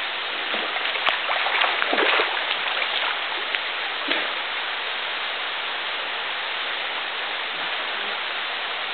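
Steady rush of a waterfall sliding down a rock slab into a shallow pool. A few brief splashes of someone wading barefoot through the water come in the first few seconds.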